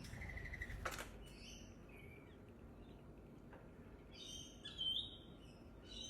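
Rainbow lorikeet giving short, shrill chirps and chattering calls, the loudest near the five-second mark. There is a single sharp tap about a second in.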